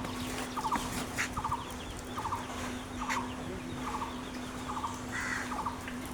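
Bird calls, like farm fowl: short rattling bursts of a few quick pulses, repeating about every half second to a second, over a steady low hum.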